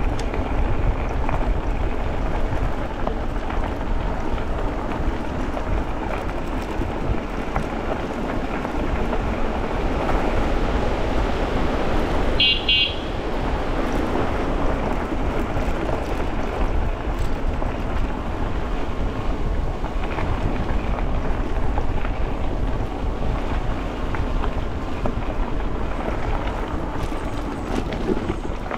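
Steady wind noise buffeting the microphone, with low rumble, from riding a fat-tire e-bike along a trail. A short, high chime-like tone sounds briefly about halfway through.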